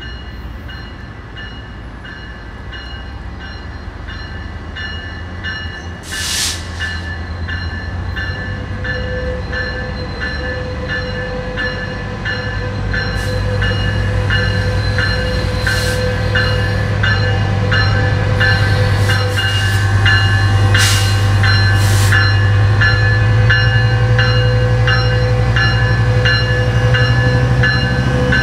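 Metrolink EMD F125 diesel locomotive approaching and passing close, its engine drone growing steadily louder and rising slightly in pitch. A bell rings in quick even strokes throughout, with several brief sharp bursts of hiss about a third of the way in and again past the middle.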